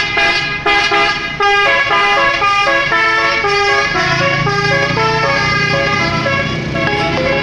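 Bus basuri horn, the multi-note 'telolet' horn, playing a quick melody of short stepped notes. A steady low hum runs under it from about four seconds in to near the end.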